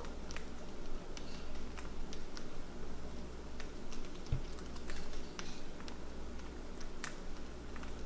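Cockatiel husking millet seeds off a millet spray: a run of small, irregular beak clicks and cracks, with a soft low bump about halfway through.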